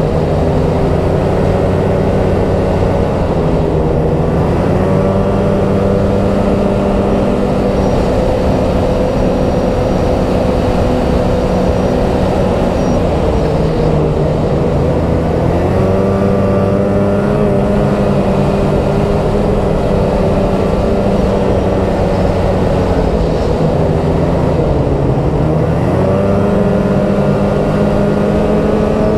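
2018 Polaris XCR 800 Switchback snowmobile's two-stroke 800 twin engine running under way at a steady trail speed. Its pitch drops twice as the throttle eases, about midway and again near the end, and climbs back each time.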